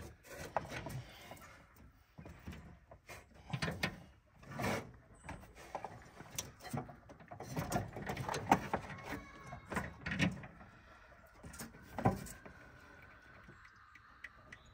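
Hands working wiring in an old truck's engine bay: irregular rustling of cables, clicks and light knocks of metal parts, with a couple of sharper knocks in the second half.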